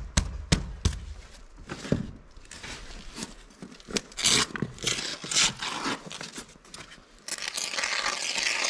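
Rigid foam insulation board being slid and knocked into place: quick knocks about three a second at first, then scraping and rustling. About seven seconds in, a steady hiss of canned spray foam starts.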